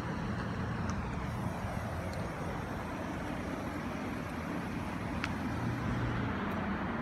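Steady low rumbling hum with a wash of noise, unchanging throughout, with a couple of faint ticks.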